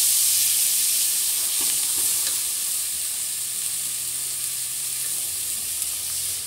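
Chopped onion, bell pepper, tomato and herbs sizzling as they sauté in a hot pan, a steady frying hiss with a few faint stirring ticks.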